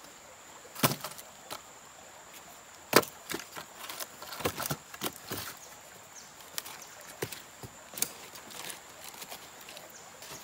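Dry dead branches being laid and knocked onto river stones: scattered sharp wooden knocks and clatters, the loudest about three seconds in, followed by a quicker run of small knocks.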